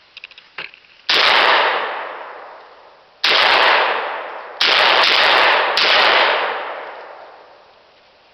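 A 1967 Browning A-5 Sweet 16, a 16-gauge long-recoil semi-automatic shotgun, fired several times in quick succession, with each loud shot echoing away over a second or two. The first shot comes about a second in, after a few faint clicks of handling.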